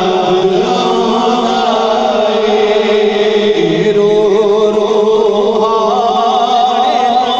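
A man singing a naat, a devotional song in praise of the Prophet Muhammad, into a microphone without instruments, his voice wavering in long melismatic lines. Other men's voices hold a steady drone beneath the melody.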